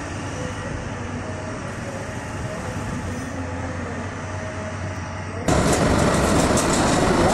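A heavy rail track-laying machine running, a steady low mechanical hum that jumps suddenly to a much louder, rougher machine noise with faint clanking about five seconds in, as it is heard up close.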